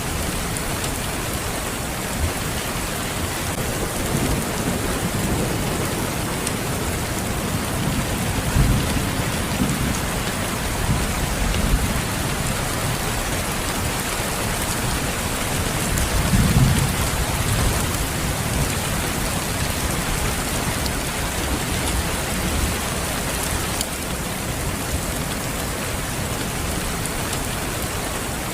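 Steady, dense rain hiss, with low rumbles of thunder swelling up several times, strongest about halfway through.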